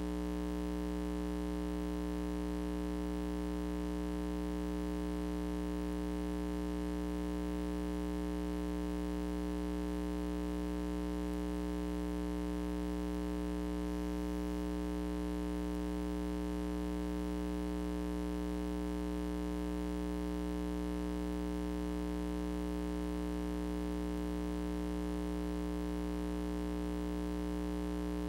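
Steady electrical mains hum, a low buzz that never changes, with no other sound over it.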